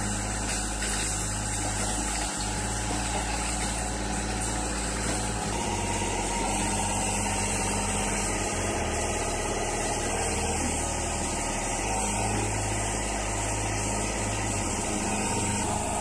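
Hydraulic car-crushing press running under load: its engine and hydraulic pump drone steadily while the press lids squeeze a car body, the low hum shifting in steps as the load changes, with a few faint knocks.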